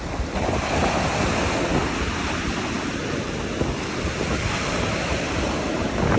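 Ocean surf breaking and washing up a sandy beach, with wind noise on the microphone.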